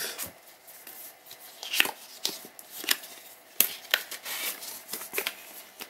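Hands unfolding and handling a folded thin card leaflet: light paper rustling broken by a few sharp taps and clicks, the loudest about two seconds in and again near the middle.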